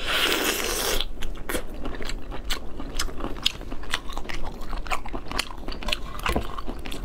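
Crunching as a steamed lobster's shell is bitten, for about the first second, then a string of sharp cracks and snaps as the shell is broken apart by hand.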